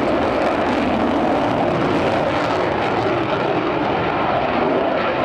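Steady jet noise from the twin General Electric F414 turbofan engines of an F/A-18 Super Hornet flying a display pass.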